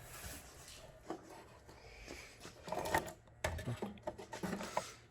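Light handling noise of work on a metal panel: scattered clicks, taps and rustling, busiest in a cluster of sharp ticks over the second half.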